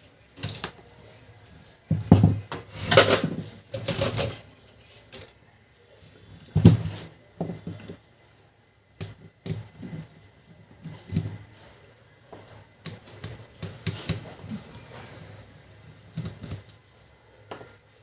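Irregular knocks, clicks and rattles of hard plastic and metal printer parts being handled, as a Canon LBP2900 laser printer is taken apart. The loudest knocks come about two to four seconds in and again near seven seconds.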